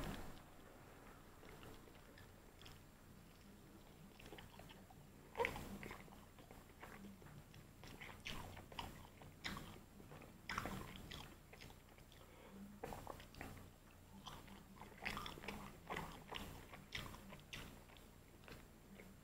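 A person biting and chewing KFC fried chicken, with faint crunches at irregular intervals and a sharper crunch about five seconds in.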